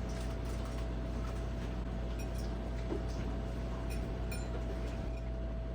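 Quiet room tone: a steady low hum with a faint steady tone and a few soft ticks.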